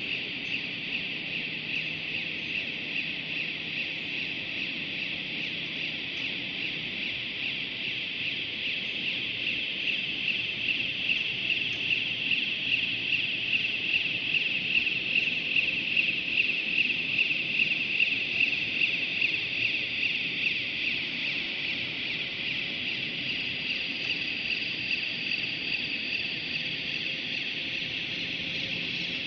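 Steerable transfer cart's electric drive motors running as it travels, a steady high-pitched whine with a fast flutter that grows louder from about a third of the way in and eases off again near the end.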